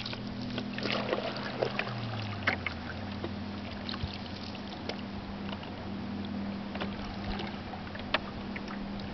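Canoe paddle dipping and pulling through calm lake water, with small splashes and scattered drips ticking off the blade. A faint steady low hum runs underneath.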